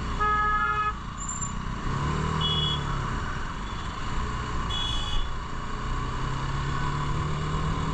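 Steady engine and road noise of riding in traffic, with a vehicle horn honking once briefly just after the start and two short high beeps later on.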